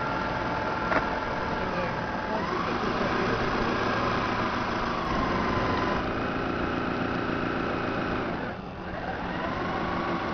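Electric drive motors of a model harbour tug with Voith Schneider propellers, running with a steady whine. Their pitch rises and falls twice as the speed changes, and there is a single sharp click about a second in.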